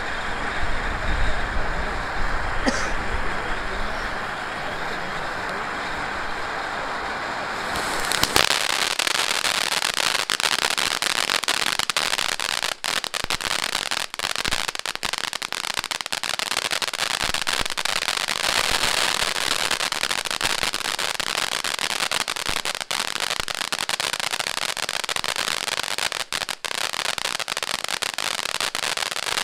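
Liuhua LH1-1-5 firework fountain spraying sparks with a steady hiss. About eight seconds in it suddenly gets much louder, becoming a dense, continuous crackle of many small pops.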